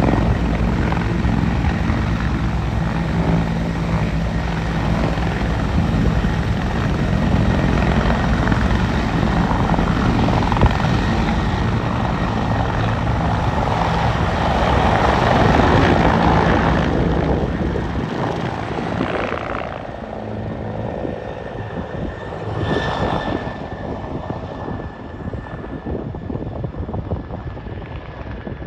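Bell 412EPi twin-turbine helicopter hovering close by: heavy rotor chop with a steady turbine whine above it. Late in the stretch the deep rotor thud drops away and the sound grows fainter as the helicopter flies off.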